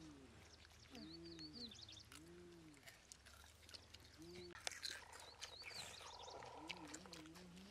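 Faint dove cooing, a series of low rising-and-falling coos about a second apart, with small birds chirping and a few light clicks.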